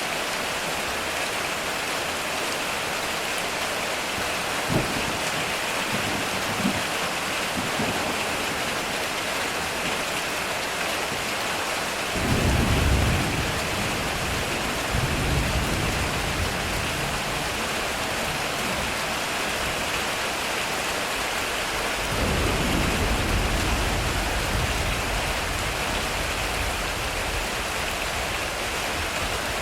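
Heavy rain drumming steadily on a metal roof, with two short sharp cracks about five and seven seconds in. Thunder rumbles in suddenly about twelve seconds in and fades, and a second long roll of thunder comes about twenty-two seconds in.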